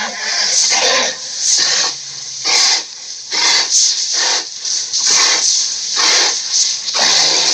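Giant-ape sound effect: a string of short, breathy huffs, roughly two a second, like a great ape panting heavily.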